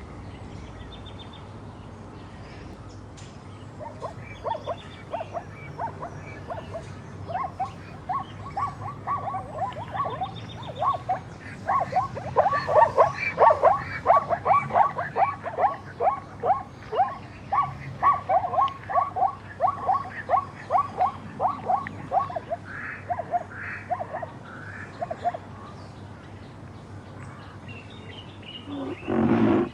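A chorus of frogs croaking: short calls repeating several times a second. It builds a few seconds in, is loudest through the middle and thins out well before the end. A brief louder, lower call comes right at the end.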